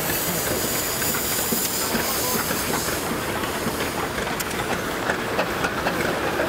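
Steam traction engines running past, with a steady hiss of steam that is loudest in the first half and scattered metallic clicks and clanks from the running gear.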